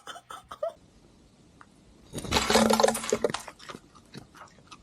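A crash and clatter: a quick run of many impacts lasting about a second, just past the middle, with a few faint knocks before and after.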